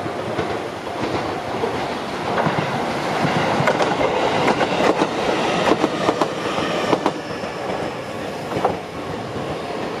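Electric train passing over a level crossing, its wheels clattering over the rail joints in a run of sharp clicks. It is loudest between about three and seven seconds in, then fades as it moves off. The crossing's warning bell rings under it.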